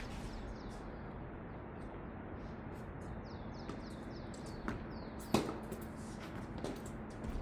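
A few sharp tennis ball impacts, the loudest a little past halfway, over steady outdoor noise. Birds chirp in a quick run of short falling calls in the middle.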